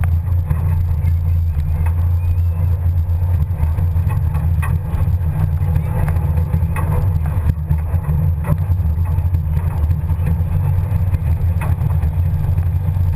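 Pinzgauer off-road truck driving over a woodland track, heard from its open rear bed: a steady low rumble of the engine and drivetrain, with scattered knocks and rattles from the bed.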